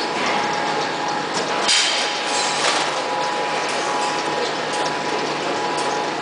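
Vertical packing machine running as it bags frozen dumplings: a steady mechanical clatter and clicking with a steady high hum, and two brief hissing sounds about a second and a half and two and a half seconds in.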